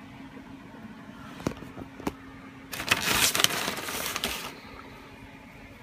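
Two sharp clicks, then a plastic snack bag of pretzel crisps crinkling loudly for about two seconds as it is handled and opened, over a steady low hum.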